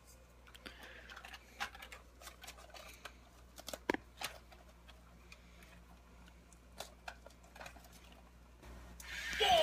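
Faint clicks, taps and rustles of hands handling a plastic crawling toy soldier figure and its cloth jacket, pressing the parts of the body shell together. Near the end a much louder sound starts, with repeated falling pitch sweeps.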